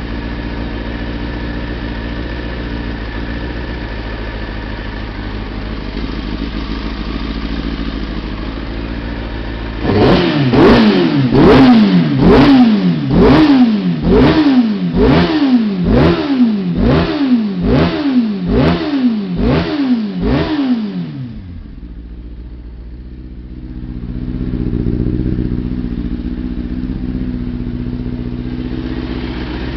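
Kawasaki ZX-6RR inline-four sport-bike engine idling steadily, then blipped through about a dozen quick revs, roughly one a second, before dropping back to idle and settling. It runs cleanly with freshly cleaned spark plugs, the earlier misfire and fluffy running cured.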